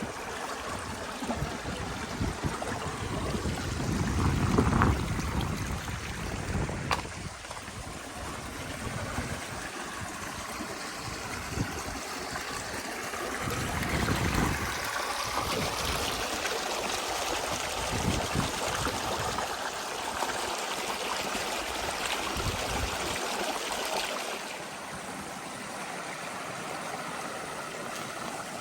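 Stream water running and babbling over stones, with a couple of brief low rumbles about four and fourteen seconds in.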